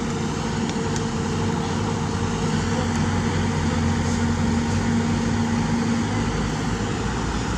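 Kobelco SK200 excavator's diesel engine running steadily under working load as its arm moves over a truck bed, with a few faint clicks.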